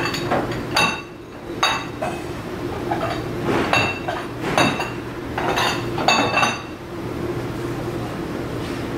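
Ceramic bowls clinking against one another and the plastic dish rack as they are set in upside down, about eight clinks over the first seven seconds. A steady hum runs underneath.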